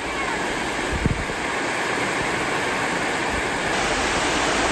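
Steady rush of water pouring over a stepped stone spillway, growing slightly louder toward the end.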